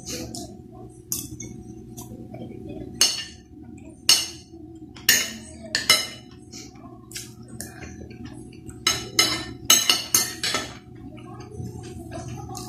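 Metal spoon and fork clinking and scraping against a glass plate while eating, with about a dozen sharp clinks spread unevenly through and several close together about nine seconds in. Chewing sounds come between the clinks.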